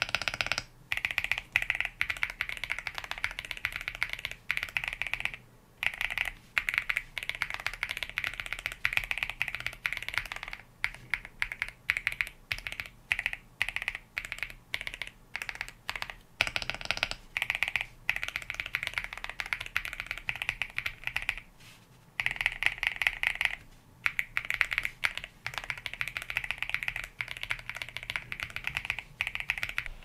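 Typing on a mechanical keyboard fitted with WS Yellow linear switches, in a switch sound test. Fast runs of keystrokes are broken by short pauses, with slower, separate key presses in the middle.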